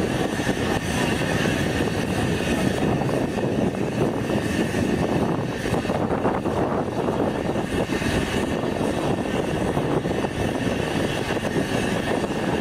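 Red rack-railway locomotive hauling a train of coaches, running slowly toward the platform with a steady drone of engine and running noise.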